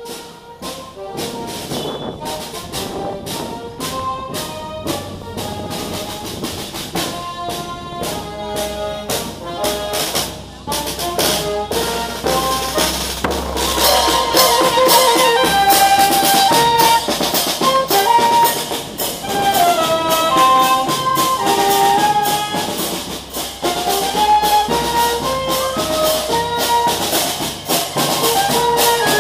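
Marching band of saxophones and drums playing a march in the street: a saxophone melody over a steady snare and bass drum beat. It grows much louder about halfway through as the band comes close.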